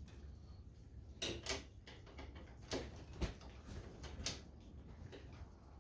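A handful of faint, scattered clicks and light knocks from a tractor throttle cable being handled and worked into place.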